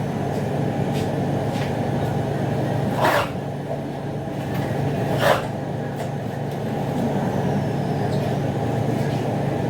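Plastic cling wrap being pulled and stretched over a tray of fish: two short rustling tears about two seconds apart, over a steady low hum.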